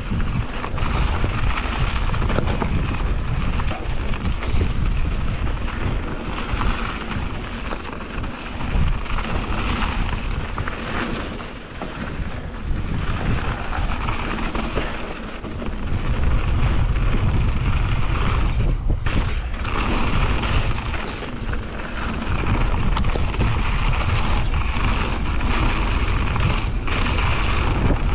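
Wind rushing over an action camera's microphone as a mountain bike descends a dirt trail at speed, with tyre noise and frequent short knocks and rattles from the bike over bumps. It eases off briefly a few times and gets louder again about halfway through.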